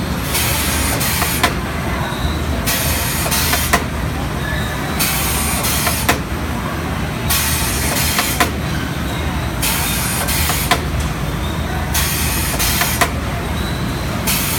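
Steen ST 828 poultry drumstick machine running with a steady low hum. A hiss switches on for about a second and then off again, over and over, with a sharp click about every two seconds.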